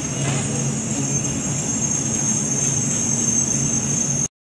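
Steady street noise with traffic running. The sound cuts out completely for a moment near the end.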